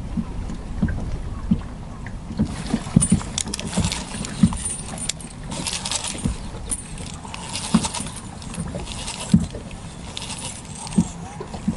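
Water knocking against the hull of a small fishing boat in irregular low thumps. From about two seconds in, fishing tackle is handled with intermittent clinking and rustling.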